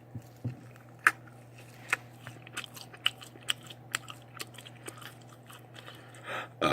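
A person chewing and biting food close to the microphone, with a scatter of small wet mouth clicks and smacks, over a faint steady hum.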